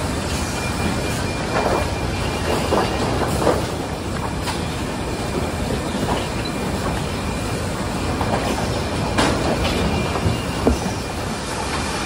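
Sawmill machinery running: chain transfer conveyors carrying boards and slabs make a steady mechanical din with a thin steady high tone. Scattered knocks and clatter of wood and chain sound through it, sharpest a couple of times near the end.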